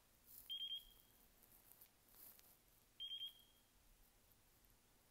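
Jumper T16 radio transmitter beeping in bind mode while it binds to the receiver: two short groups of about three quick high-pitched beeps, about half a second in and again about three seconds in.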